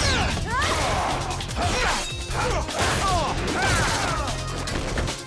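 TV fight-scene sound effects: a rapid run of crashes and hits mixed with many short, falling zap sweeps, over action music.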